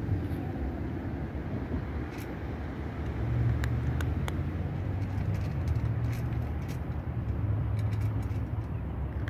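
Cat crunching dry kibble from a stainless-steel bowl: scattered sharp clicks at irregular intervals, over a steady low rumble that grows a little louder about three seconds in.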